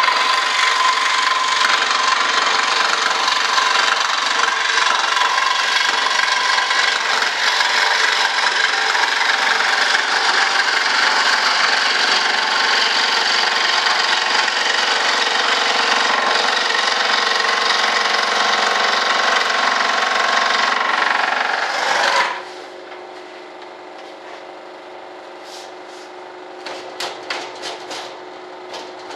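Electric bench saw cutting through a sheet, running steadily with a whine, then switched off about 22 seconds in. A low hum remains, with a few light clicks and taps near the end.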